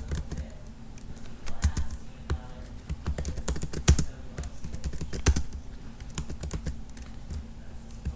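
Typing on a laptop keyboard: irregular, quick keystroke clicks, over a faint steady hum.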